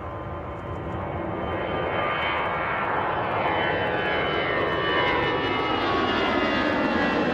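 Jet engines of a Boeing 747-8 (four General Electric GEnx-2B turbofans) running up to takeoff thrust. The roar grows steadily louder, with tones that sweep slowly downward.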